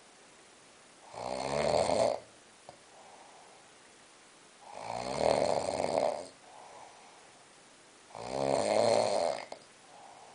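A person snoring: three long snores about three and a half seconds apart, each followed by a fainter breath.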